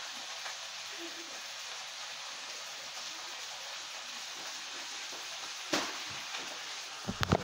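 Food frying in a pan, a steady sizzle. A sharp knock comes a little under six seconds in, and a few quick clicks follow near the end.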